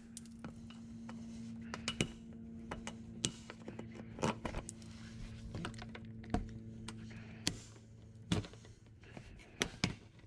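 Plastic push-pin clips being pried out of a car's plastic underbody skid plate with a flat-blade screwdriver: irregular sharp plastic clicks and snaps, a dozen or so scattered through, over a steady low hum.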